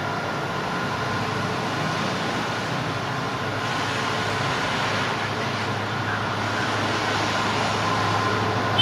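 Steady running noise of an express train hauled by an EMD WDP-4B diesel locomotive, its 16-cylinder two-stroke engine working in high notch as the train accelerates, over a constant low hum and wheel-on-rail haze.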